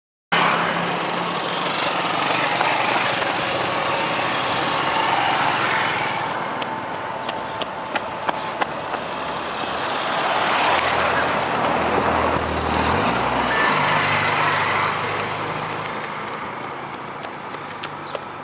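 Road vehicle engines running close by, with tyre and wind noise and a few sharp clicks about halfway through.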